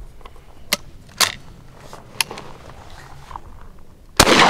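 A few sharp metallic clicks as the Rock Island Tradition 20 gauge single-shot break-action shotgun is closed and readied, then one very loud 20 gauge shot about four seconds in, ringing on afterwards.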